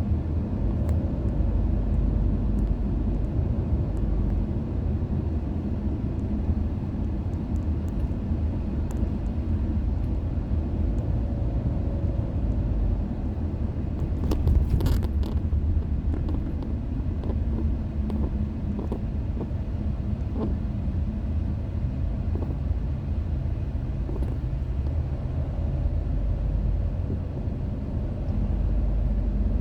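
Road and engine noise heard from inside a moving car's closed cabin, a steady low rumble, with a brief louder rush about halfway through.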